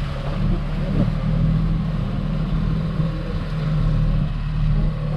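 Glass-bottom boat's engine running steadily at low speed, a deep, even hum.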